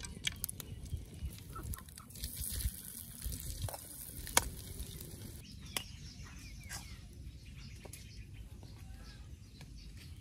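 Pieces of frog frying in oil in a wok, a quiet sizzle, with a few sharp clicks, the loudest about four seconds in.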